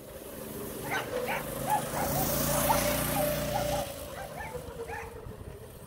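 Go-kart's 212cc single-cylinder four-stroke engine running as the kart drives past: its drone builds to a peak midway, then fades as it pulls away. Over it comes a series of short animal calls.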